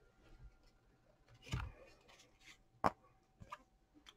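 Trading cards being handled and flipped through: faint papery rustles, with a soft knock about a second and a half in and a sharp click near three seconds.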